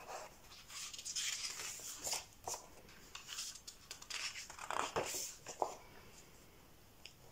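Pages of a hardcover picture book being turned and pressed flat by hand: several soft paper rustles.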